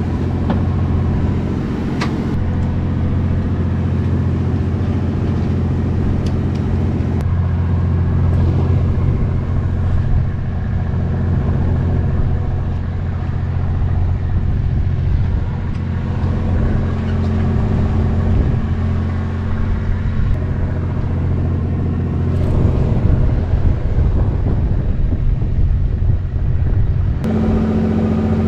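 Fishing boat's engine running with a steady low hum, with a sharp click about two seconds in; near the end the hum shifts as a new, higher steady tone comes in.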